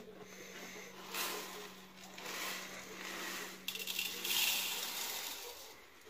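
Plastic storage container being opened, then tipped so dry grains pour out into a plastic bowl: a hissing, pattering pour, at its strongest from about three and a half to five seconds in.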